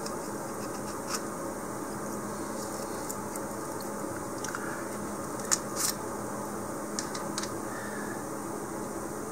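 Handling noise of bamboo skewers being pushed into glued holes in a styrofoam ball: a few light clicks and scrapes, the sharpest pair a little past the middle, over a steady low room hum.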